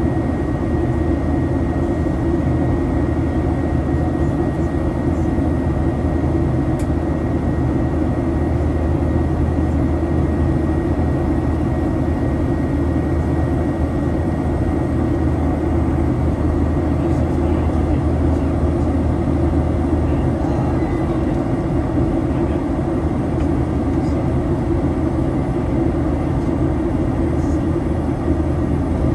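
Steady low cabin drone of a Boeing 737-800 in the climb, its jet engines and the rushing air heard from inside the cabin. A faint steady whine sits above it and fades away over the first half.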